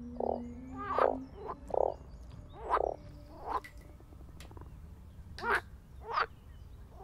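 Frogs croaking: about eight short croaks at irregular intervals, with a pause of more than a second past the middle. A low held tone runs under the first croaks and stops about a second in.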